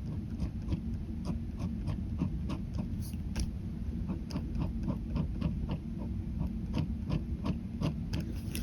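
Ballpoint pen scratching on paper in short, quick hatching strokes, about three or four a second, over a steady low rumble.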